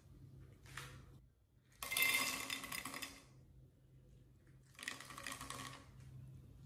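Ice cubes tipped into a glass tumbler, clattering against the glass and each other in two bursts, the first louder and about a second and a half long, the second shorter and quieter about three seconds in.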